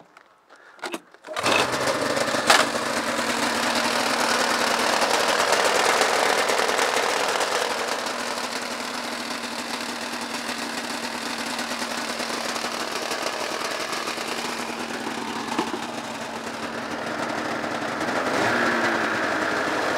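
1999 Ski-Doo Summit X's Rotax 670 HO two-stroke twin engine starting up about a second in, then idling steadily, with a single sharp click just after it catches.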